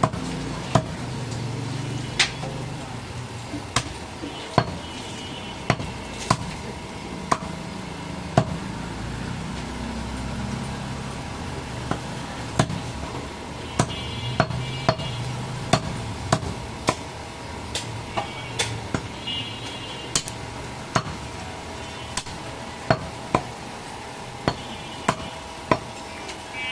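Heavy butcher's chopping knife cutting goat meat on a wooden log chopping block: sharp chops at an uneven pace of roughly one a second, the blade striking through meat and bone into the wood.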